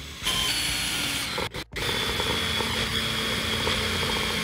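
Power drill boring a hole through a plastic trim piece, its motor whining steadily. It runs in two stretches, with a short stop about a second and a half in.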